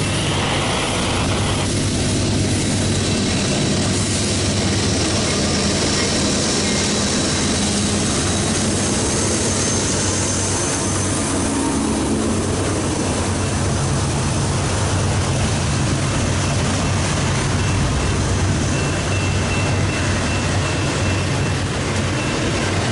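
Union Pacific diesel locomotives running under power as a departing double-stack intermodal train pulls past, followed by the steady wheel-on-rail noise of the container well cars rolling by.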